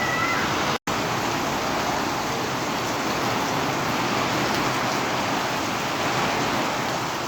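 Heavy rain pouring down in a dense, steady hiss. The sound cuts out for an instant just under a second in.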